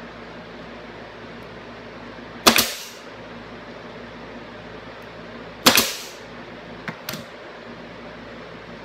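Pneumatic nailer firing twice, a few seconds apart, driving short nails into a glued wooden box joint; each shot is a sharp crack with a brief tail. Two lighter clicks follow soon after the second shot.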